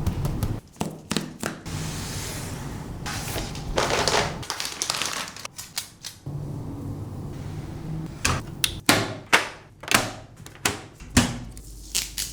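Computer parts being handled during a PC build: a run of sharp clicks, taps and knocks, with sliding and rustling in between. The clicks come thick and fast near the end.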